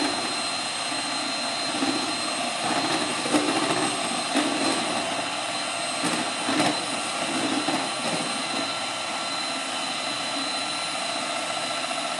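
Two-beater handheld electric mixer running steadily, whipping egg-white marshmallow mixture in a stainless steel pot, with occasional light knocks of the beaters against the pot.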